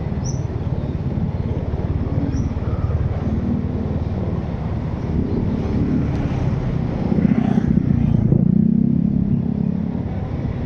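Vehicle engine and road noise while driving in traffic: a steady low rumble that swells louder for a couple of seconds past the middle.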